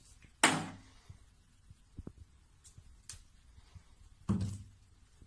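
Plastic toiletry bottles knocked off a bathroom shelf, landing with two sharp knocks: the louder about half a second in, the second about four seconds in, each dying away quickly.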